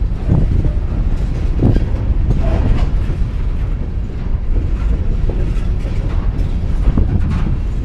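Empty coal train of open-top hopper cars rolling along the track: a steady low rumble broken by a few scattered metallic clanks and knocks.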